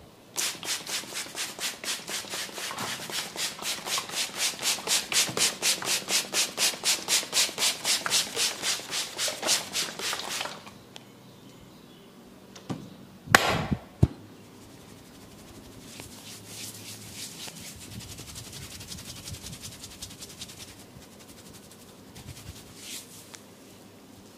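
Hands massaging oiled skin with fast rhythmic rubbing strokes, about four a second, for some ten seconds. A short, sharp, loud sound about thirteen seconds in, then quieter rubbing strokes.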